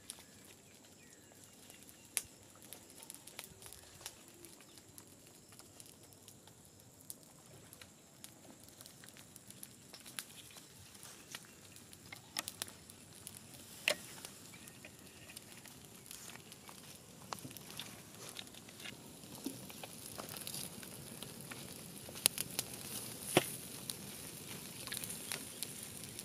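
Wood fire crackling, with sharp pops now and then, as whole tilapia roast directly on it; a faint sizzle grows slightly toward the end.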